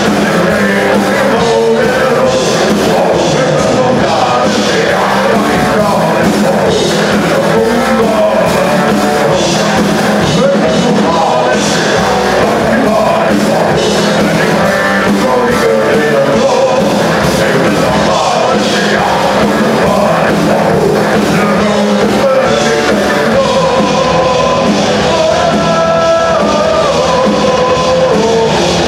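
A folk metal band playing live and loud: electric guitars and a drum kit, with several men singing together into microphones, heard from among the audience.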